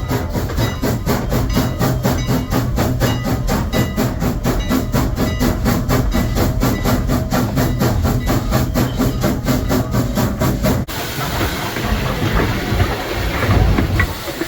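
Steam locomotive #89 working under way, its exhaust chuffing in a fast even rhythm of about four beats a second. About eleven seconds in the beats cut off suddenly and give way to the steady rumble of the train rolling on the rails.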